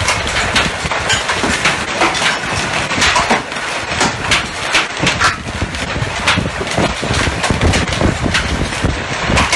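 Heavy hailstorm: large hailstones striking hard surfaces in a loud, dense clatter of many sharp hits over a steady roar.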